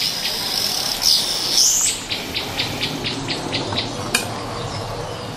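Eru being stirred in a pot over a wood fire: a low, steady sizzling and stirring noise with one sharp click about four seconds in. Birds call over it: a glide in the first couple of seconds, then a run of short, even high notes, about four a second.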